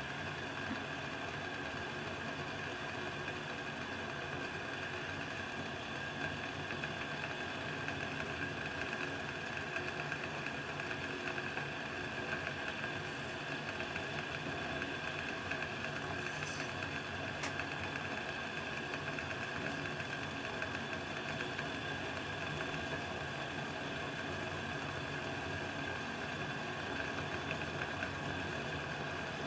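Vargo Triad titanium alcohol stove burning steadily under a pot of water heating toward the boil: an even, unbroken rumbling hiss.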